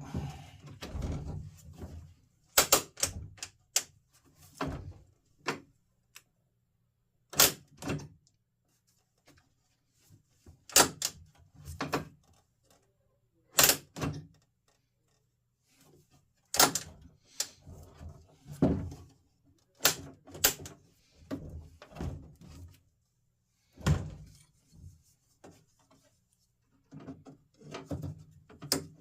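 Sharp metallic clicks and knocks from the Jeep YJ hard-door latch mechanism and its parts being worked and handled. They come irregularly every few seconds, often two in quick succession, with some duller thuds between.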